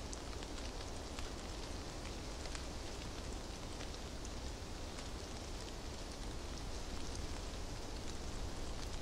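A steady hiss with scattered faint ticks over a low rumble.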